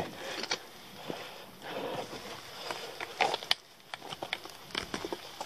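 Trekking poles and hands knocking and scraping against a rock face while scrambling up it: scattered sharp clicks and taps, a few close together about three seconds in, over light scuffing.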